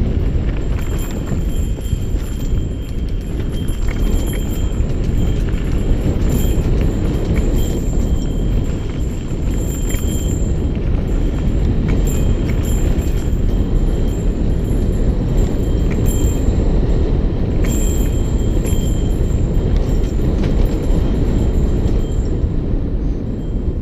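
Mountain bike riding fast down a dirt trail, heard from a bike-mounted camera: a steady low rumble of wind buffeting the microphone and knobby tyres rolling over dirt and gravel, with scattered rattling clicks from bumps and a faint high whir that comes and goes.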